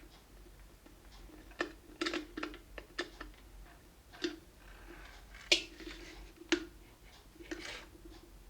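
Irregular sharp clicks and light knocks, about a dozen, the loudest about five and a half seconds in, over a faint steady hum.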